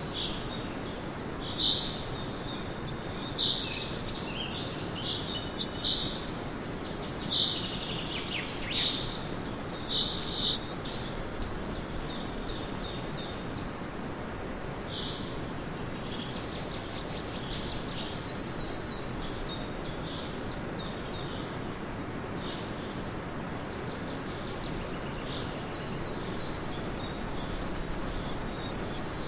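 Outdoor nature ambience: birds chirping in short calls over a steady background hiss. The calls come often in the first dozen seconds and are sparser after.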